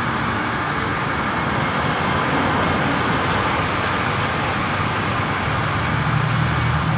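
Diesel engine of a Tadano rough-terrain crane running steadily with a dense mechanical noise. A deeper engine drone strengthens about five and a half seconds in.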